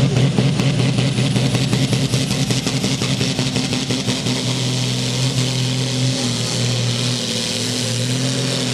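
Pulling tractor's diesel engine revving hard under full throttle, pouring black smoke, and settling into a steady heavy pull as it drags the weight sled down the track in the second half.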